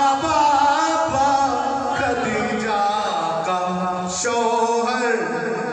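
A man singing an Urdu devotional manqabat unaccompanied into a microphone, drawing out long, wavering held notes.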